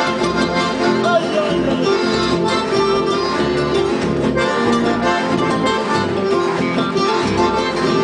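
Accordion and acoustic guitars playing a piece together live, the accordion's sustained notes over plucked guitar notes, at a steady level throughout.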